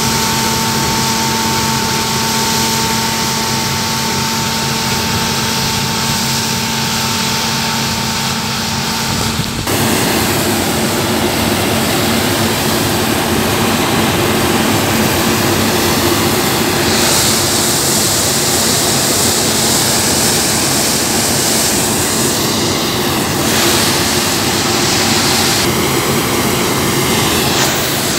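Claas Lexion combine harvester running under load while harvesting grain: a steady drone of engine and threshing machinery with a few held tones. About ten seconds in it changes abruptly to a slightly louder, noisier rush of machinery.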